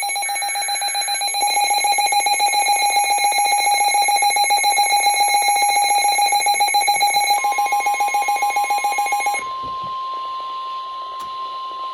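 Weather-radio emergency alert signals: a fast-pulsing electronic alarm beep, with a short warbling data burst near the start. A single steady alert tone comes in about seven seconds in, and the pulsing alarm stops about two seconds later while the steady tone carries on.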